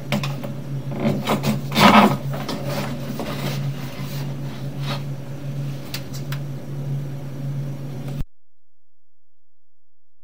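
Sewer inspection camera's push cable being fed down the line, with irregular rubbing and scraping knocks over a steady low hum; the loudest scrape comes about two seconds in, and all sound cuts off near the end.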